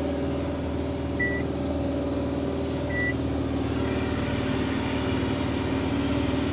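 Loaded truck's diesel engine running steadily on the move, with two short high beeps about two seconds apart in the first half.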